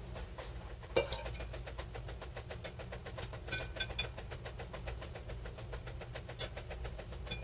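Cooking utensils on a wok and a ceramic plate: a sharp knock about a second in as the wooden spatula scrapes the squid off the wok, then bright ringing clinks of metal tongs against the plate near the middle. Under it a steady low mechanical hum with a fast, even ticking.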